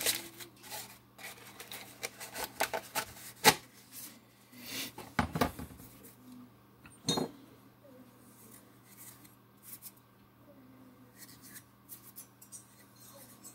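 Metal hand tools and small engine parts clinking, tapping and rubbing against each other on a workbench, with sharper knocks about three and a half and seven seconds in, then only light scattered ticks of handling.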